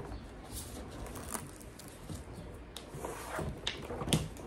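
Rustling and light knocks of a cardboard gift box being opened and its paper-wrapped contents handled, with a sharper knock about four seconds in.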